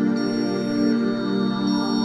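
Background music of slow, held keyboard chords, with a high tone coming in twice.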